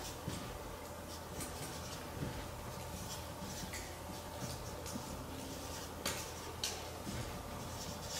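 A marker drawing a handful of short strokes on flip-chart paper, over a faint steady room hum.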